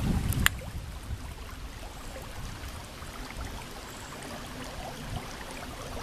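Shallow river water running steadily past a small boat. A low rumble of wind on the microphone fades out in the first half second, and one sharp knock with a brief ring comes about half a second in.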